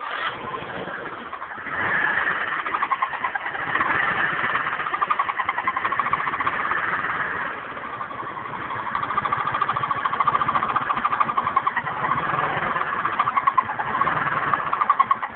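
GY6 152QMI four-stroke single-cylinder scooter engine running warm, with an unidentified noise the owner hears only when the engine is hot. Its level rises about two seconds in and dips briefly near the middle.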